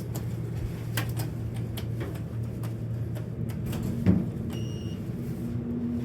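Otis high-speed traction elevator, modernized by Thyssenkrupp, heard from inside the car: a steady low hum with scattered clicks, a sharp thump about four seconds in, then a short electronic beep. A higher steady hum sets in near the end.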